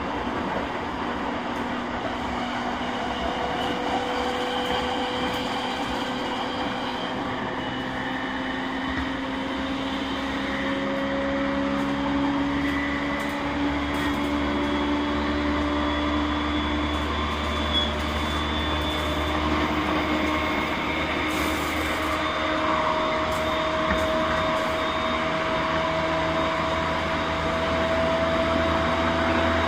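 JR E231-1000 series electric train with renewed traction equipment, running: its traction motors whine in several tones that climb slowly in pitch as the train gathers speed, over the steady rumble of wheels on rail. The low rumble grows heavier about halfway through.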